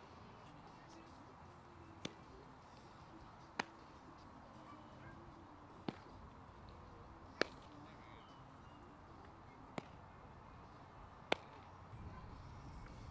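Baseballs smacking into leather gloves, about seven sharp single pops spaced a second and a half to two and a half seconds apart: a catcher's mitt receiving pitches and an infielder's glove catching the throws.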